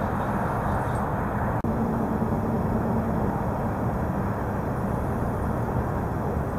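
Steady rumble of distant road traffic that cuts out for an instant about a second and a half in.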